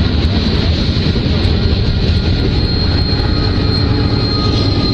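Freight train passing close by: a steady rumble of the rolling cars. A high whine grows stronger in the second half as the mid-train diesel locomotives come alongside.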